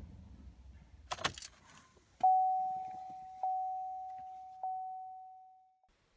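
Ignition keys jangle in a pickup's steering-column ignition as the key is turned, then the truck's instrument-cluster chime dings three times, about a second apart, each a single clear tone that rings and fades.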